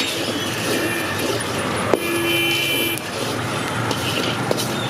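Steady street traffic noise. A vehicle horn sounds for about a second near the middle, just after a sharp click.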